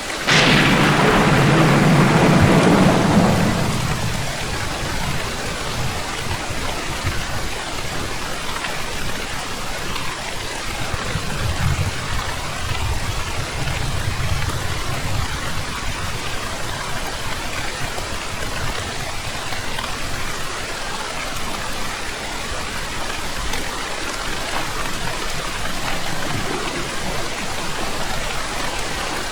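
Steady heavy rain with a sudden loud thunderclap just after the start that rumbles for about three seconds before fading, and a fainter low roll of thunder about ten seconds later.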